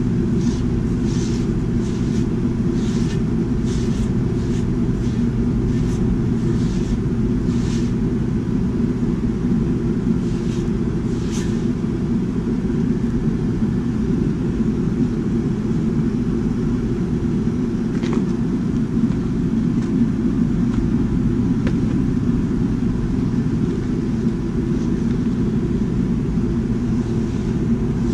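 Propane burner under a cast iron wok running at full heat, a steady low rushing rumble. During the first eight seconds or so, faint repeated swishes of a paper towel wiping the wok's surface sit on top of it.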